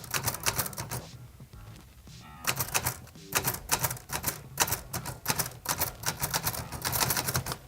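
Manual typewriter keys clacking in quick, uneven runs, with a pause of about a second near the start.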